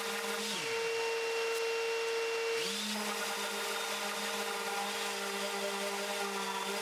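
Makita random orbit sander running on Tasmanian oak, sanding back cured epoxy. Its motor hum drops in pitch about half a second in and climbs back up just before three seconds in, over a second steady tone.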